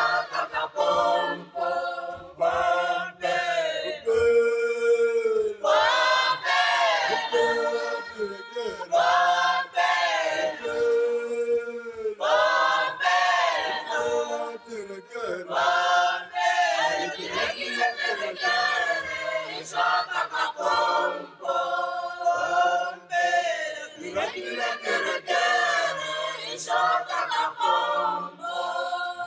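A group of voices singing together without instruments, with some long held notes.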